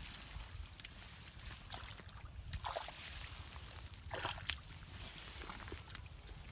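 Legs and hands squelching and sloshing through shallow mud and water, with a few short splashy squelches over a steady low rumble.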